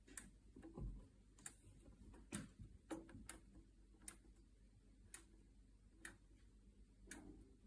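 Faint, irregular clicks of the Cuisinart air fryer toaster oven's rotary control dial being turned, about one or two a second.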